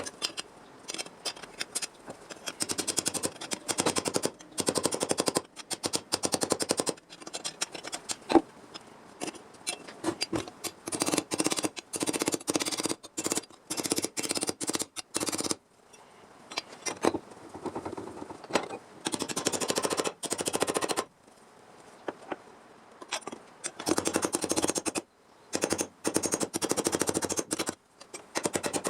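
A sheet-metal cutting tool chattering in repeated bursts of a second or two, each a rapid run of sharp clicks, with short pauses between cuts.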